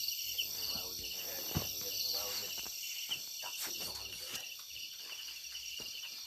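Steady night-time insect chorus of crickets or cicadas, several high trills pulsing together, with a few brief knocks and rustles lower down.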